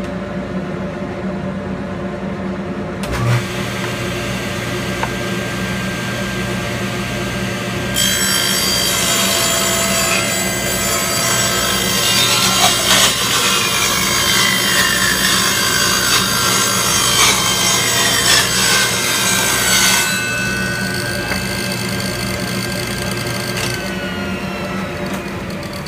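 Dust collector running steadily. About three seconds in, a table saw starts up, and from about 8 to 20 seconds its blade rips through a thin scrap board, pushed through with a push stick, in a louder, harsher stretch. The saw is switched off near the end and winds down while the dust collector keeps running.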